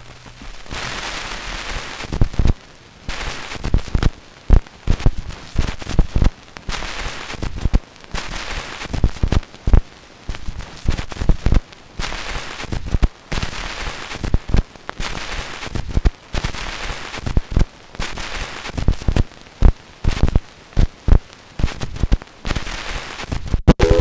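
78 rpm shellac record turning with the stylus in the lead-out groove after the last note: steady surface hiss and crackle, with a loud click about once per turn, under a second apart. It cuts off suddenly at the very end.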